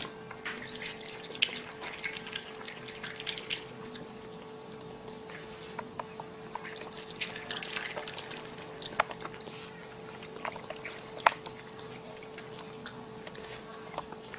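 A raccoon chewing grapes: wet smacking and crunching clicks in irregular clusters, a few sharper snaps among them, over a steady hum.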